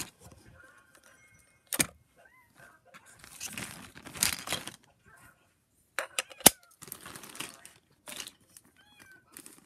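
Toys being handled: rattling and clinking with a few sharp clicks.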